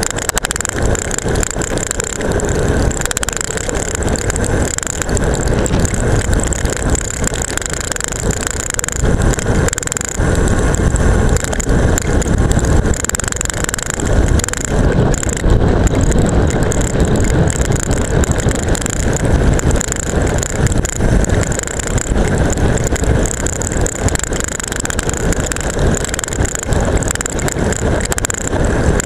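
Seatpost-mounted action camera rattling hard on its strap as a road bike speeds downhill over rough, cracked asphalt, with a steady rush of wind and tyre noise underneath.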